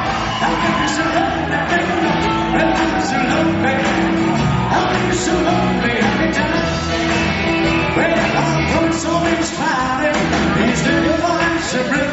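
Upbeat rock and roll music played by a live band, steady and loud throughout.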